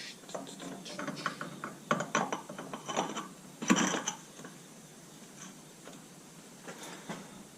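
Metal parts of a forklift's hydraulic reverser clinking and knocking as they are handled and fitted together by hand. Scattered clicks through the first half, the loudest clank a little under four seconds in, then quieter.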